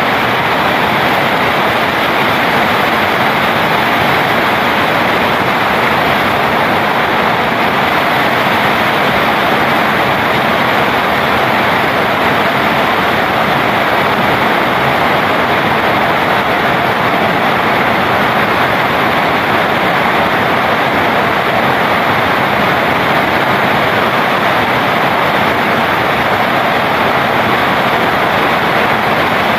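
Steady, loud rain falling on trees and garden foliage, an even hiss that does not change.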